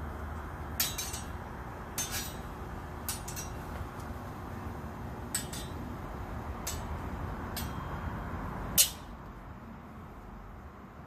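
Steel longsword blades clashing in sparring: about seven sharp metallic clinks at irregular intervals, some in quick pairs, the loudest one near the end. A steady background noise runs underneath.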